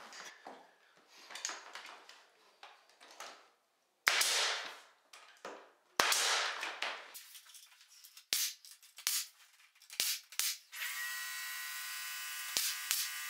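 Pneumatic brad nailer firing twice into primed MDF base trim, about two seconds apart, each shot a sharp crack followed by a short hiss of exhaust air. Lighter clicks and taps follow, and a steady hum starts near the end.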